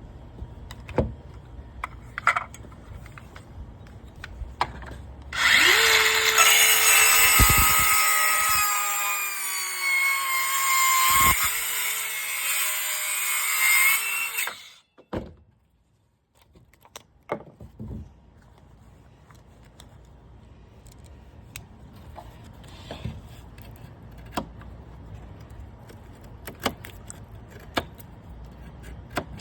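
A power saw starts about five seconds in and runs for roughly nine seconds, cutting wood with a high whine that dips and recovers under load, then stops. Light knocks and handling sounds come before and after it.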